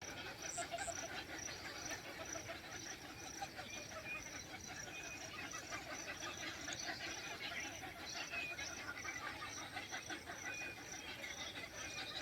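A dense chorus of many birds calling at once, a steady mass of short chirps and calls.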